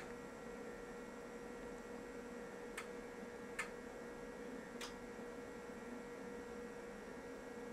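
Faint, steady mains hum from powered bench test equipment, with a steady whine over it and three faint, short clicks near the middle.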